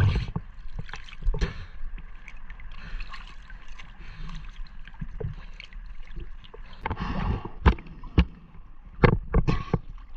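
Sea water sloshing and splashing around a camera held at the surface by a swimmer, with a run of louder splashes in the last few seconds.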